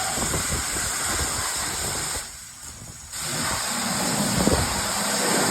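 Car engine running, with a steady hiss over a low, uneven rumble. The sound drops away for about a second a little past two seconds in, then returns.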